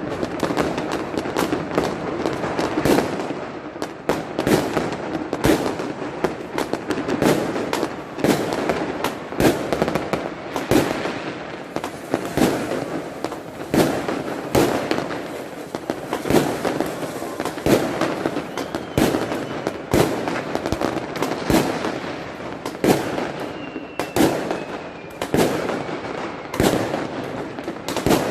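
Fireworks going off all around across a city, near and distant at once: an unbroken barrage of bangs and crackling, with sharp reports several times a second.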